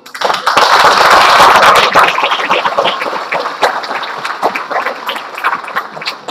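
Audience applauding. The clapping starts suddenly, is loudest in the first couple of seconds, then slowly thins and dies away.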